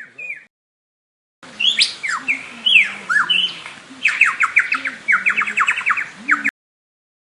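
Lyrebird singing, starting about a second and a half in and stopping abruptly near the end. It gives whistled notes that sweep up and down, then quick runs of sharp repeated notes.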